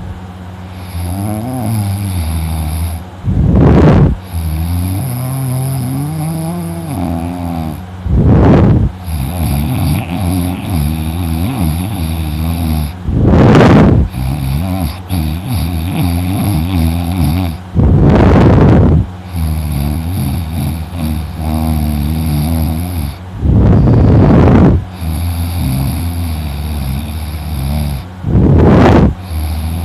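A man snoring heavily in deep sleep: a low, wavering, rattling snore of several seconds alternates with a loud, breathy gust into the microphone, six times about five seconds apart.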